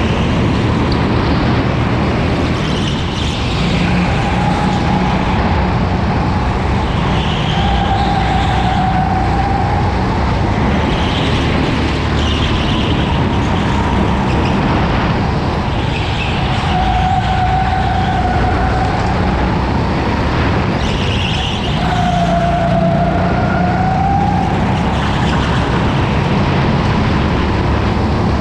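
Racing go-kart lapping an indoor track, heard from on board: a steady rumble with a whine that dips and rises in pitch every few seconds as the kart slows and speeds up through the corners.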